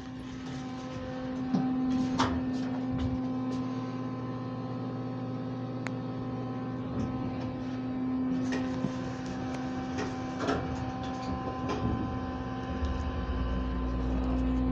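Elevator car running upward: a steady mechanical hum with a few light clicks and knocks. A deeper rumble joins near the end.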